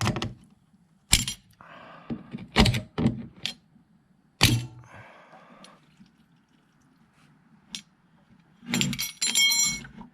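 A string of knocks and clunks with two short scraping sounds, then a quick cluster of ringing metallic clinks near the end: tools and metal parts being handled on a washing machine.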